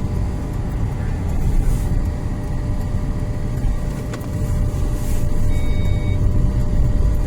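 A car running at low speed while being backed into a parking spot, giving a steady low rumble. A short electronic beep sounds about five and a half seconds in.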